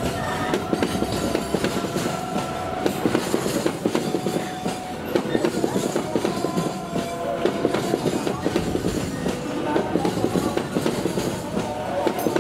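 Container freight train's loaded flat wagons rolling past close by: a steady heavy rumble, with wheels clacking over the rail joints in a quick, uneven run of clicks.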